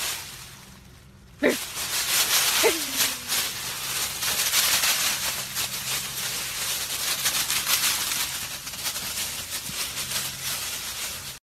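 Dry fallen leaves crackling and rustling as a husky runs and bounds through them, starting about a second and a half in and going on densely. A brief falling cry comes near three seconds in.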